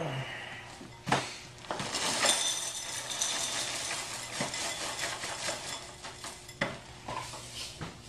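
Dry Cap'n Crunch cereal poured into a bowl: a knock about a second in, then a dense rattling rush of pieces for a couple of seconds, with a few light knocks after.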